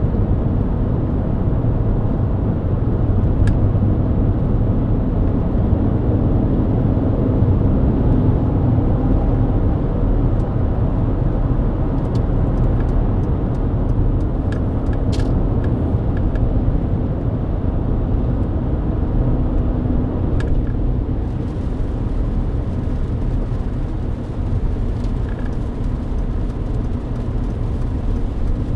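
Mercedes-Benz W124 driving on a wet expressway: a steady low rumble of engine and tyres, with scattered light clicks. A higher hiss joins about two-thirds of the way through.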